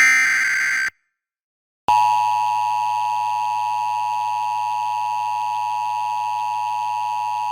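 Emergency Alert System broadcast opening: a screeching SAME digital header burst cuts off just under a second in, and after a second of silence the loud, steady EAS attention tone starts and holds, signalling that a warning message is about to be read.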